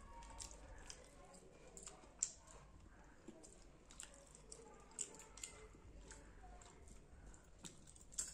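Faint chewing and lip smacks from eating fish and rice by hand, with scattered soft clicks as fingers pick at fried fish; one sharper click about two seconds in.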